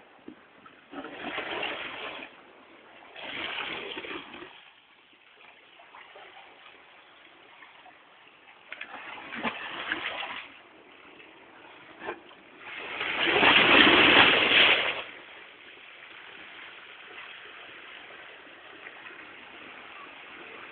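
Sea waves breaking and washing up on the shore: four separate surges, the fourth and loudest a little past the middle, then a steady quieter wash.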